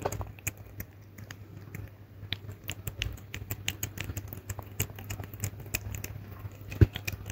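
Domestic cat eating soft mousse wet food from a stainless steel bowl: quick, irregular wet licking and smacking clicks, several a second, with one louder click near the end.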